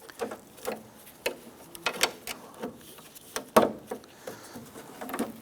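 Irregular clicks, knocks and rattles of the interior door handle's metal linkage rods and plastic clips being worked loose inside a Jeep Wrangler door, with one sharper knock about three and a half seconds in.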